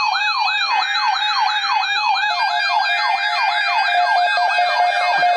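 Electronic yelp siren, its pitch sweeping rapidly up and down about three times a second over a steady tone.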